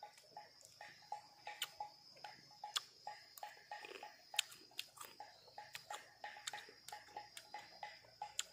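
Chewing of crunchy unripe oleaster (nhót) fruit close to the mouth: a steady run of small crunches, about two to three a second.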